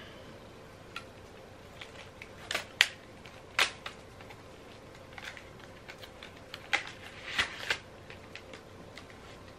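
A stack of trading cards in plastic sleeves, held between cardboard pieces with rubber bands, being taken apart by hand: scattered sharp clicks and snaps of the bands and sleeves, with several bunched in the middle and again near the end.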